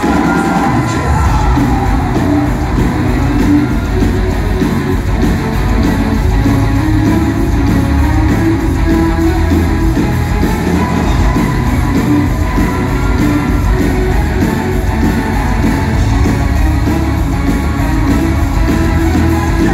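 Live rock band playing loud and steady, with electric guitar and bass guitar, heard from within the audience in a large concert hall.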